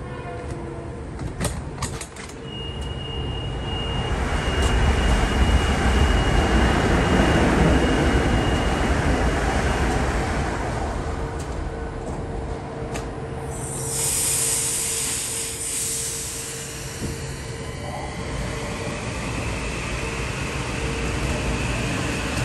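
Metro-North M8 electric multiple-unit train running past at close range: a rising rumble of wheels on rail, loudest about five to nine seconds in, with a steady high whine over it. A brief high-pitched burst of noise comes about fourteen seconds in.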